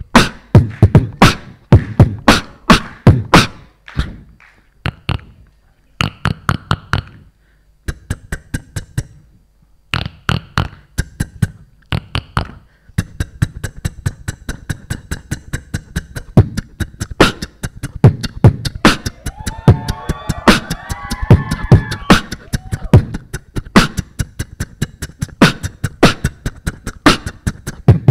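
Solo beatboxer performing into a handheld microphone: a drum-like beat of deep kicks, snares and fast hi-hat clicks, broken by short pauses in the first half. It becomes a dense, unbroken groove about halfway through. A gliding, pitched vocal line rides over the beat for a few seconds in the second half.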